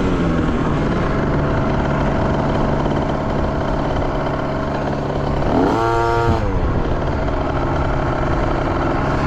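Dirt bike engines running steadily, with one bike's engine revving up and dropping back down about six seconds in.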